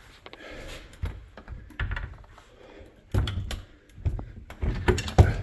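Irregular knocks and thuds from someone moving around a derelict building's rooms, loudest about three seconds in and again near the end.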